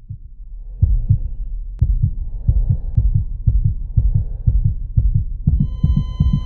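Heartbeat sound effect: deep, fast, evenly repeating thumps. About five and a half seconds in, a steady high tone joins them.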